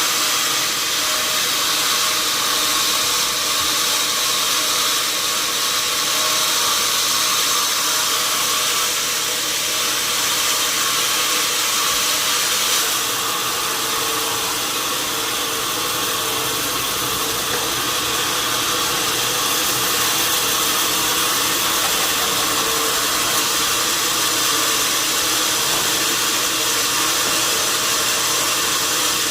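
Sawmill machinery running steadily: a constant loud hiss with a faint low hum beneath it.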